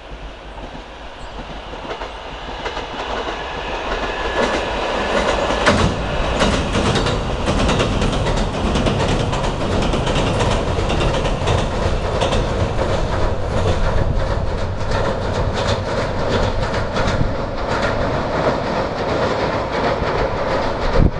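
JR Kyushu 787 series electric express train crossing a steel girder bridge. Its rumble swells over the first few seconds, then holds loud and steady, with rapid clicking of the wheels over the rail joints.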